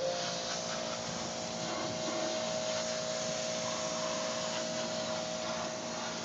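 Steady whirring machine noise with a constant whine over a rushing hiss, switching in suddenly and then running evenly.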